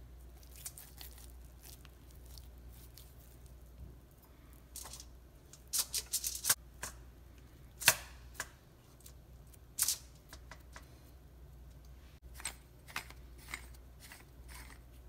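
Hands packing soft chakli dough into a brass chakli press cylinder and fitting its lid, over crinkly aluminium foil. The sound is faint handling noise with scattered short crackles and clicks: a cluster about six seconds in, the sharpest one about eight seconds in, and a few more near the end.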